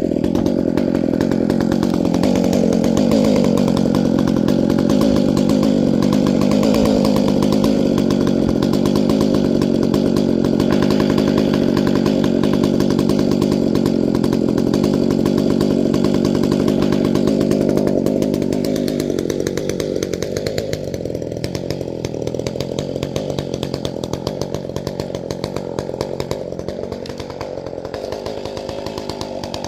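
Ported chainsaw with a 28-inch bar running hard, cutting firewood. About two-thirds of the way through, the engine note changes and the level drops as it comes off the heavy cut.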